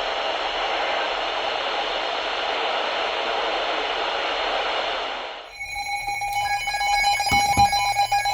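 Weather radio receiver hissing with steady static for about five seconds. The static then fades out and several steady electronic tones take over, some of them pulsing, over a low hum.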